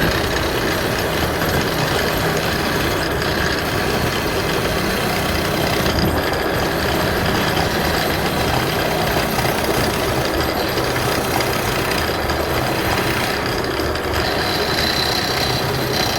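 Wood lathe running steadily while turning a plywood blank, with a brief high whine near the end.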